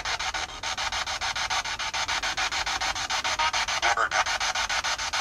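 Ghost-hunting spirit box sweeping through radio stations: rapid chopping static at about ten pulses a second, with a brief voice-like fragment about four seconds in, read on screen as "Never know".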